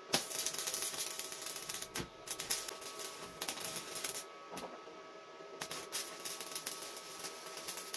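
Stick (arc) welding: the electrode's arc crackles and sputters steadily, breaks off a little past halfway, then is struck again about a second later and crackles on.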